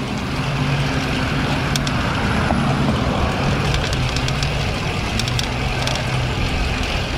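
Steady rush of wind on a bike-mounted action-camera microphone, with road and tyre noise as a road bike rolls along. Under it runs a steady low hum, and scattered light clicks come and go through the middle of the stretch.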